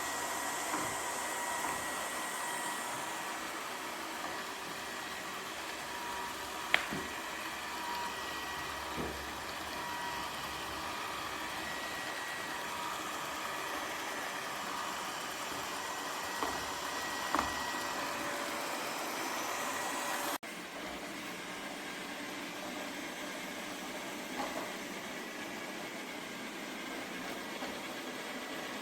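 Lefant robot vacuum cleaner running: a steady motor and suction noise with a faint high whine, broken by a few sharp knocks. The noise drops suddenly to a slightly lower level about two-thirds of the way in.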